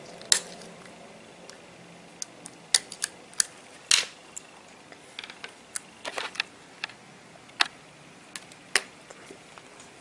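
Scattered sharp clicks and small taps from a plastic spudger prying the flex-cable connectors off an iPhone 6 logic board, along with the clicks of the display assembly being handled. The clicks come singly at irregular intervals, with a quick cluster about six seconds in.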